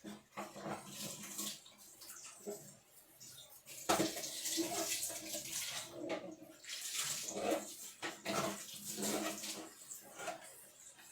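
Water running and splashing in irregular bursts as refrigerator shelves and parts are washed by hand, growing louder and busier about four seconds in.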